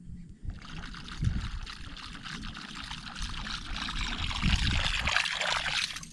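Water splashing and rushing, growing louder toward the end and stopping abruptly just before it, over an uneven low rumble.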